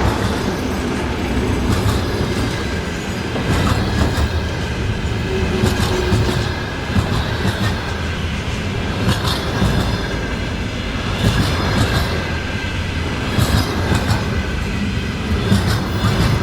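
A train rolling past at speed, its steel wheels clattering over the rail joints in repeated pairs and clusters of clicks over a steady rumble.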